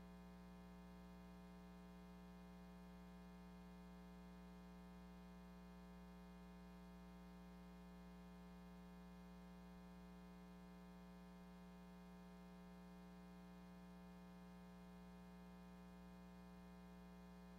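Near silence with a faint, steady electrical hum made of many even tones that never changes.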